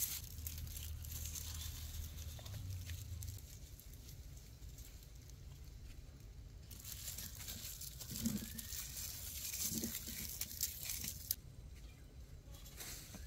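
Irregular rustling and crinkling, with two soft knocks past the middle.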